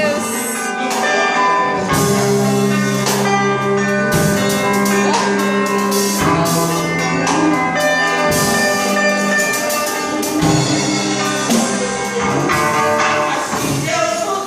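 Live worship band playing an instrumental passage: sustained chords with percussion hits throughout.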